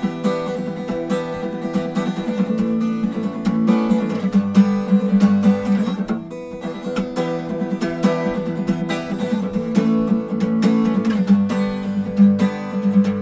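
Acoustic guitar playing the instrumental intro of a song, a steady run of quick picked and strummed notes.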